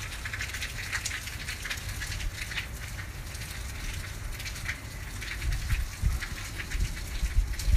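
Rain pattering, with many small drops ticking on wet surfaces, over a low rumble that swells in the second half.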